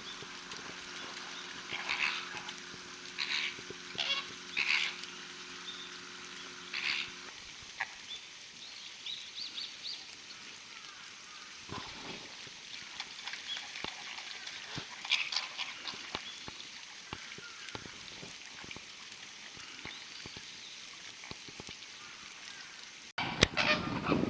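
Flamingos calling: scattered short, goose-like honking calls over a low background, with a steady low hum under the first seven seconds. Near the end there is a sudden click and the calls get louder.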